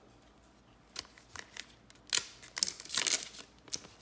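Foil wrapper of a trading card pack torn open and crinkled, after a few light clicks of handling.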